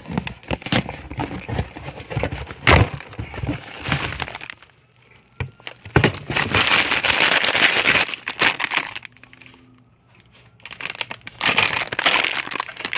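Plastic packaging and bubble wrap being handled and unwrapped by hand: crinkling and crackling, with a run of sharp snaps in the first few seconds, then two long spells of crinkling with short quiet pauses between.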